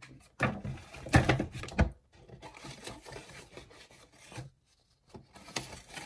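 Cardboard box and paper sheets being handled and rubbed as papers are worked into the back of the box, with several knocks in the first two seconds and scraping and rustling after.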